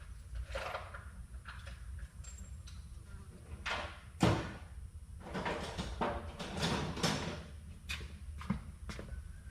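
Irregular metal scraping and knocking of hand tools working on a rust-seized ABS sensor, breaking it out of its mount, with one louder knock about four seconds in.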